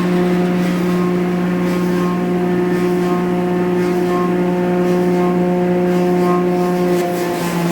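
Clog-making wood-shaping machine running steadily and loudly, with a constant hum and a rough shaving noise as it shapes a wooden clog.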